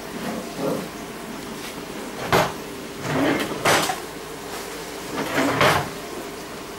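Puppies scuffling over a rope toy on a tile floor: rustling and scrabbling in a few short spells, with a sharp knock about two and a half seconds in.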